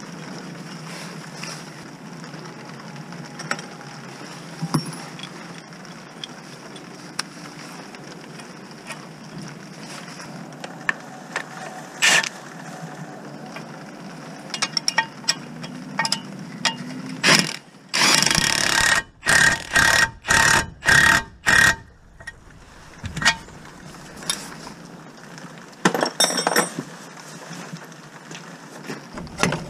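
Impact wrench hammering on a nut at the car's front hub in a run of about eight short bursts, roughly two a second, about halfway through, then a couple more bursts a few seconds later. Before that there are only light clinks of tools over a steady hiss.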